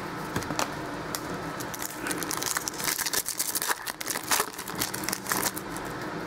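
Foil wrapper of a trading-card pack crinkling and crackling as it is torn open and handled, the crackles coming thickest in the middle few seconds.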